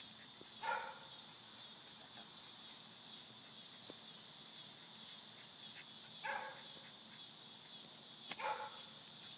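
A Lakeland Terrier gives three short barks, one near the start and two near the end, over the steady high chirring of crickets.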